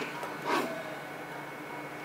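Faint handling noise as small metal electrode tips are fitted to a handheld spot-welding pen: one brief scrape about half a second in, over a steady low hum.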